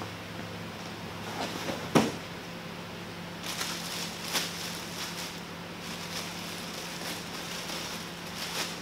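A sharp knock about two seconds in, then crinkly rustling of the tent's sunshade canopy fabric as it is unfolded and handled, over a steady low hum.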